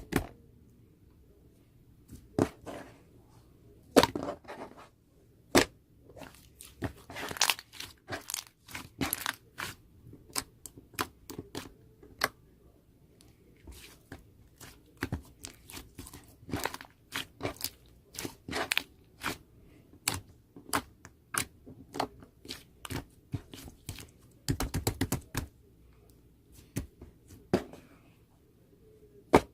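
Close-up handling sounds: irregular small crackles, taps and tearing noises, with louder knocks about four seconds in and a louder cluster near 25 seconds.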